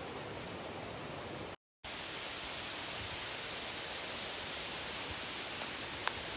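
Steady rushing of a waterfall, broken by a split-second dropout about one and a half seconds in. After the dropout a faint, steady high whine sits over the rush.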